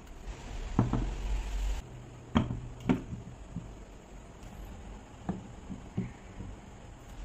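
Wooden blocks being set down and stacked on a tabletop: a handful of hard wooden knocks, the loudest ones in the first three seconds and a couple of softer ones later.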